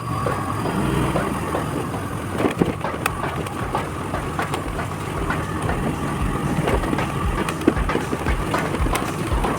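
Yamaha Ray ZR scooter's engine running while riding over rough ground, with scattered knocks and rattles and low thumps throughout.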